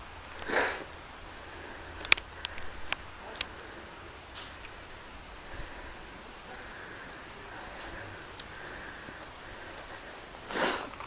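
Outdoor ambience: a few sharp snaps and crunches of steps on dry leaves and twigs, and small birds chirping in a quick repeated series. Two brief, loud hiss-like bursts come about half a second in and near the end.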